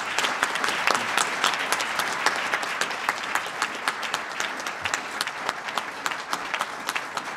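Audience applauding after a speech: steady clapping from many hands, easing off slowly near the end.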